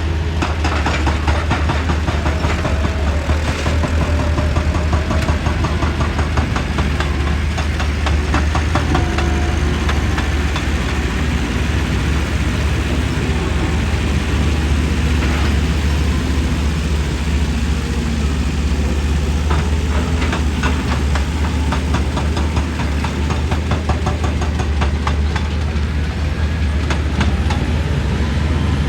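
Excavator's diesel engine running steadily with a deep hum, overlaid in spells by fast, repeated knocking impacts typical of a hydraulic breaker hammering rock.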